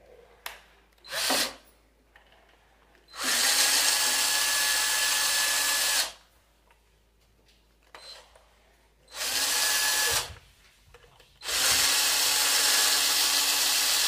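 Cordless drill-driver backing out the screws of a wall switchboard's cover plate: two brief blips of the trigger, then three runs of steady motor whine, about three seconds, one second and three seconds long.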